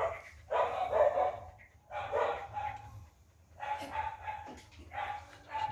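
Dog barking excitedly in greeting: four short bursts, each a second or less long, about a second apart.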